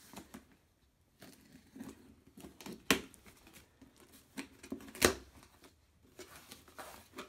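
Utility knife slitting the packing tape on a cardboard box, with short scraping and rustling sounds of blade and hands on the cardboard and two sharp knocks about three and five seconds in.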